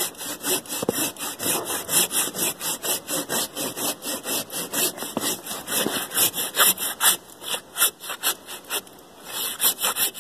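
A hand saw (a "samurai" pull saw) cutting a ring through the bark of a large poplar log, in quick, even strokes at about four a second, with a brief pause near the end before the strokes resume.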